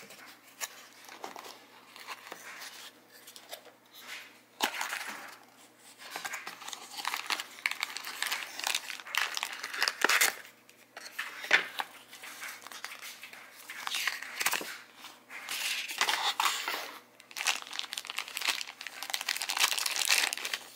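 Knife packaging handled by hand: a cardboard box opened and a folding knife taken out of its crinkling clear plastic bag, with irregular rustles and a few sharp clicks. The crinkling grows denser and louder in the last few seconds.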